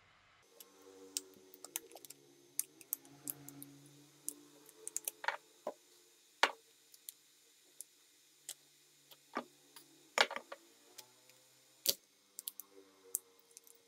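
Scattered sharp clicks and snaps at irregular intervals as a plastic opening pick is worked along the glued back cover of a Xiaomi Redmi Note 8, over a faint steady hum.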